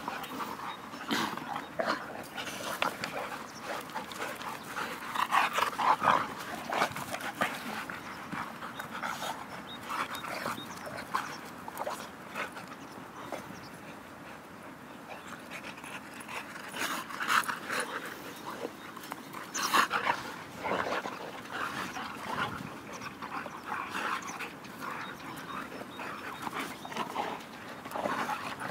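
A boxer and a ginger dog panting during rough play, with short louder bursts of noise now and then.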